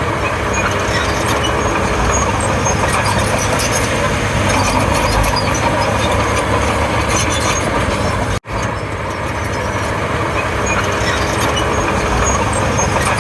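Komatsu D31P bulldozer's diesel engine running under load, with steady rattling of the tracks and blade. The sound cuts out for an instant about eight seconds in, then carries on.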